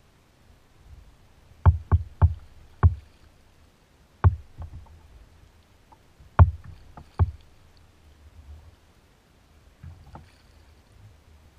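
Kayak being paddled: a series of sharp knocks and thumps as the paddle is taken up and strikes the kayak, clustered in the first seven or so seconds, with a few fainter knocks later.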